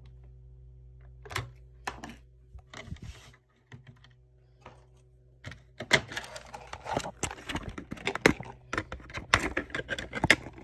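Hard plastic clicking and rattling as a smoke alarm is handled and its battery door worked open. A few scattered clicks at first, then a dense run of clicks and clatters from about halfway.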